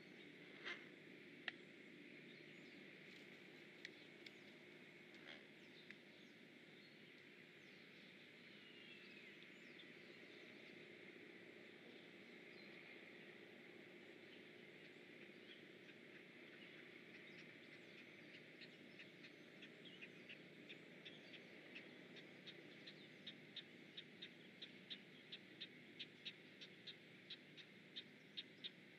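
Faint outdoor ambience with a few scattered distant bird chirps. From about two-thirds of the way through, a rhythmic run of short sharp ticks, about two a second, grows steadily louder.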